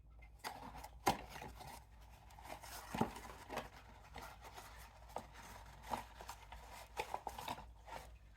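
Packaging of a diecast model car being handled and opened by hand: irregular clicks, taps and scraping of cardboard and plastic, with a few sharper knocks about a second in and around three seconds in.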